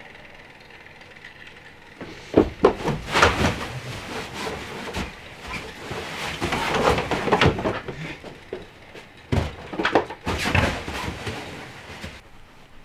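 Knocks, thumps and rustling of cushions as a man handles a puppy on a cushioned wicker daybed: a cluster of sharp knocks about two seconds in, rustling and bumping through the middle, and another cluster of knocks near the end.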